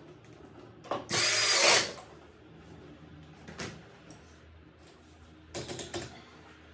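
Cordless drill-driver runs once, briefly, about a second in, driving a screw into the office chair's frame. A knock follows about halfway, and several knocks and clunks near the end as the chair is handled.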